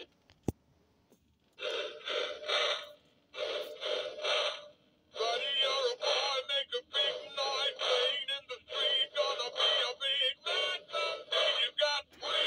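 Singing Honey Bass animatronic fish singing its recorded song in a deep voice, in phrases broken by short gaps. A single sharp click comes about half a second in, and the singing starts about a second and a half in.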